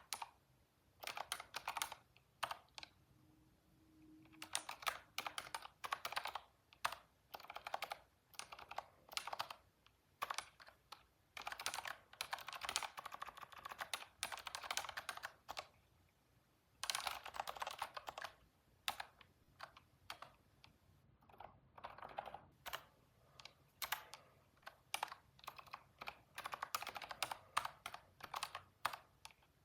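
Typing on a computer keyboard in bursts of rapid keystrokes, broken by short pauses.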